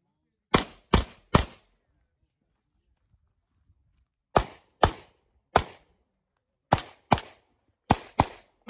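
Pistol shots fired in quick succession, about eleven, in tight groups of two and three with short pauses between the groups.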